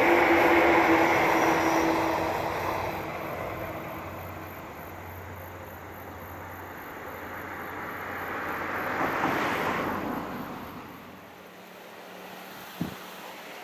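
A 115 series electric multiple unit running away along the rails, its running noise and a steady motor whine fading over the first few seconds. About two-thirds of the way in, a second rush of noise swells and fades, and near the end two short clicks.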